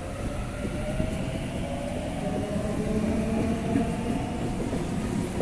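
Double-deck electric suburban train moving along the platform, its traction motors whining in a slowly rising pitch as it gathers speed, over a steady rumble of wheels on rail.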